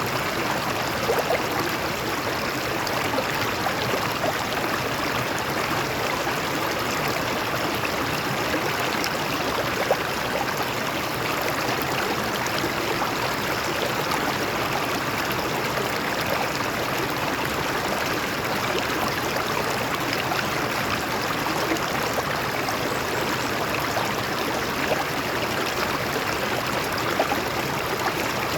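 A stream running over rocks, a steady rushing wash of water with small splashes and gurgles now and then.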